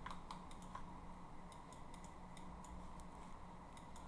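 Scattered, irregular faint clicks of a computer keyboard and mouse over a low steady hum.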